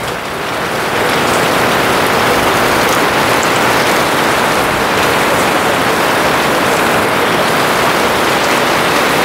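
Steady rain falling on a garden, an even hiss that swells a little in the first second and then holds.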